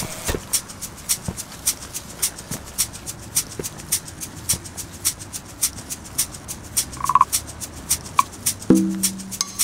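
A steady rhythm of crisp, shaker-like percussion ticks, about three a second, from a music track. Two short beeps come late on, then a brief low buzzy honk near the end.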